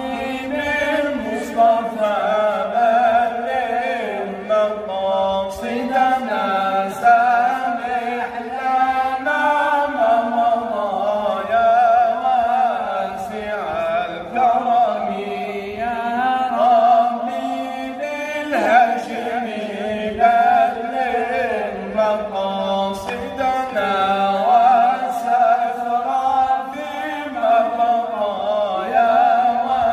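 A man's voice chanting an Arabic devotional inshad, drawing out long, wavering, ornamented notes without pause.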